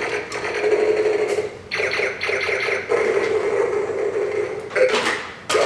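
Electronic sound effects from a transforming robot toy's small speaker: buzzy, noisy stretches broken by short gaps, with a sharp burst near the end.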